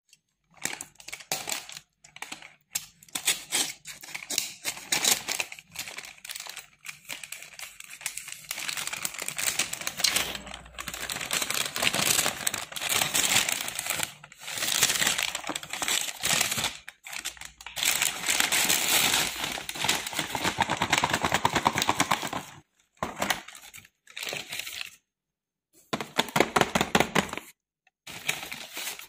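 Paper delivery bag crinkling and rustling as it is cut open and unpacked, with a plastic food tray handled inside it. The sound comes in stretches of rustling and clicks and drops out suddenly several times near the end.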